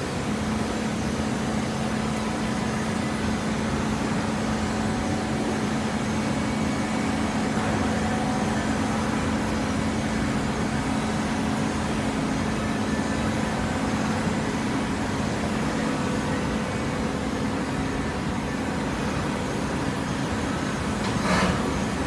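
Horizontal hydraulic baler running: a steady mechanical drone with a constant low hum, and one short clank near the end.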